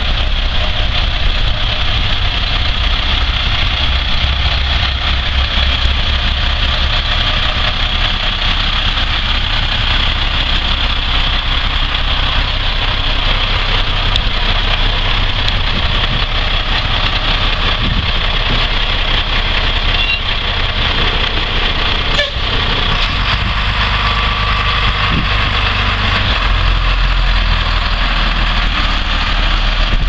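Engine of a 1989 Blue Bird school bus idling steadily, a continuous low rumble with a brief click about two-thirds of the way in.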